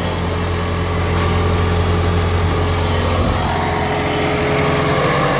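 Bobcat T450 skid steer's diesel engine idling steadily.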